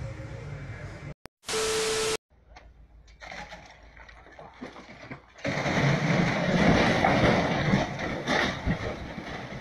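A large mass of snow and icicles sliding off a roof and crashing down onto an awning, a loud rushing, crashing noise that starts about halfway through and lasts a few seconds. Earlier, a short burst of hiss with a steady tone under it.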